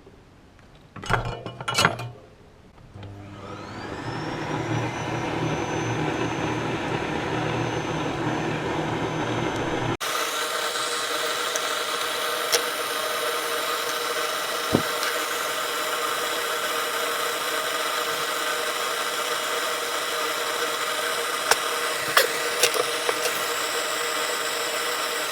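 A few sharp clicks, then a small electric motor spins up with a rising whine and settles into a steady whirring run, like a small fan or blower.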